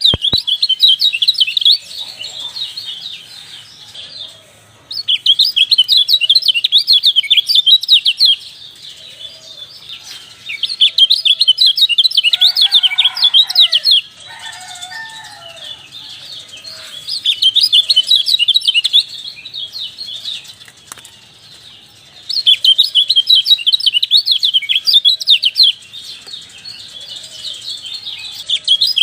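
Kecial (white-eye) song: loud, rapid, high twittering phrases of about three seconds each, repeating every few seconds, with softer chirps in the gaps between them.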